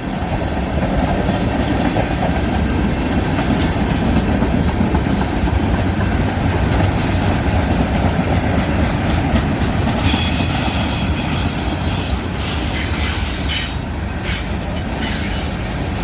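Freight cars of a mixed freight train rolling past: a steady rumble of wheels on rail, with scattered high squeals and screeches from the wheels from about ten seconds in.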